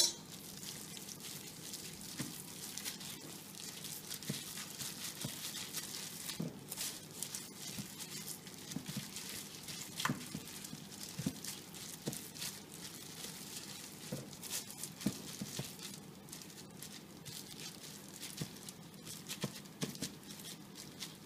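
Disposable plastic glove crinkling and squelching softly as a hand rubs a wet spice marinade over raw chicken breasts, with scattered small clicks and crackles.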